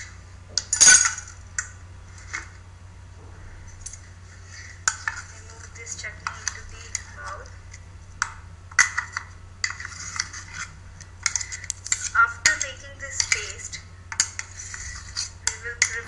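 Steel spoon scraping and clinking inside a stainless-steel mixer-grinder jar as thick ground coconut chutney is scooped out into a steel bowl, in irregular scrapes and taps. There is a loud clank about a second in.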